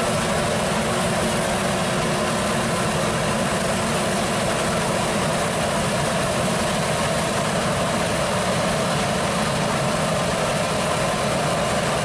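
John Deere T670i combine harvester running steadily at work, its engine and threshing machinery making a loud, even noise with a few faint steady tones in it.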